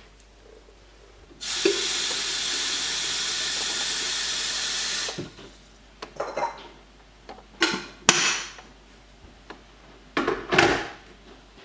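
Kitchen tap running into an electric kettle: a steady rush of water for about four seconds that then stops. Several short handling noises follow as the kettle and tap are worked.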